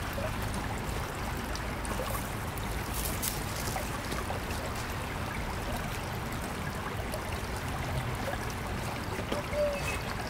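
Shallow creek running and trickling over rocks, a steady sound of flowing water close to the water's edge.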